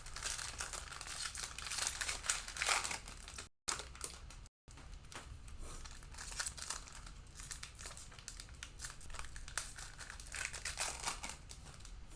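Cellophane wrapper of a trading-card cello pack being crinkled and torn open, giving a dense, irregular crackle. The sound cuts out completely twice, briefly, a few seconds in.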